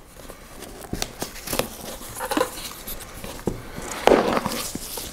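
A cardboard gift box being handled and opened: scattered light knocks, scrapes and rustles of the box and its lid.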